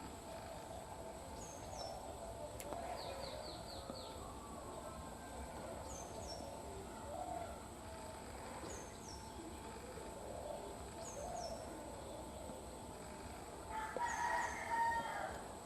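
Faint outdoor bird sounds: a small bird repeats a short high chirp every two to three seconds. Near the end a rooster crows once, about a second and a half long, louder than the rest.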